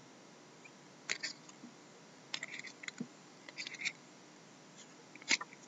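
Trading cards being handled and slid against one another: short scratchy clicks and rustles in a few clusters, the sharpest near the end.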